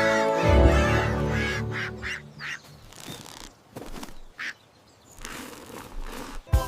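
Bouncy cartoon music that fades out after about two seconds, followed by a few short duck quacks with gaps between them.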